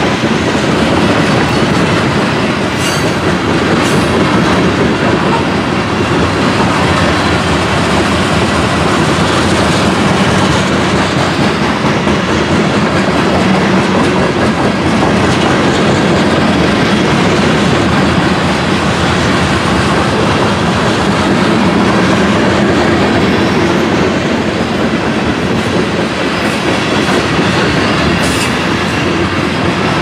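Covered hopper cars of a freight train rolling past, the steady rumble and clatter of steel wheels on the rails.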